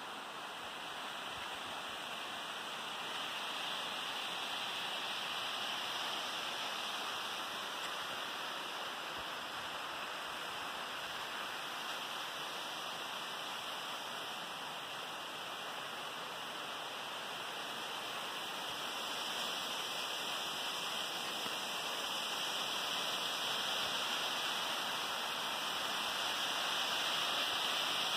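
A waterfall rushing steadily, growing a little louder toward the end.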